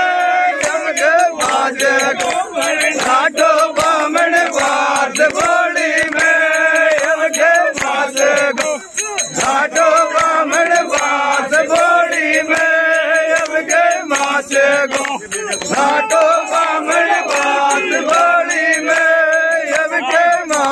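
Group of women singing a Meena folk song (ladies' geet) together, with hands clapping along.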